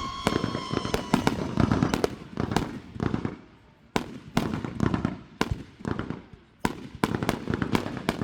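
Fireworks going off: a whistling firework's tone falls in pitch and dies away about a second in, then many sharp bangs and pops follow in irregular succession.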